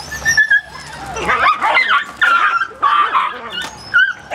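Dutch Shepherd puppy barking and yipping in repeated short, high-pitched calls, excited by a plastic-bag lure it is chasing.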